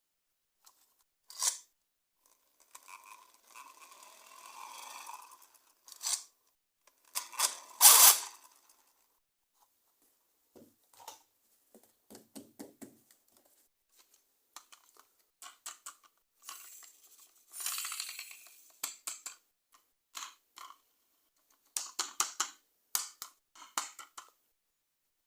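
Toy packaging being handled and opened by hand: irregular clicks, scrapes and rustling noises of plastic and cardboard, loudest in a sharp burst about eight seconds in.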